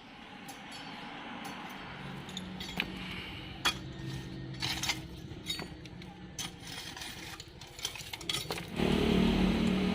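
Stick-welding arc crackling and popping irregularly over a steady hiss. Near the end a louder, steady low hum comes in.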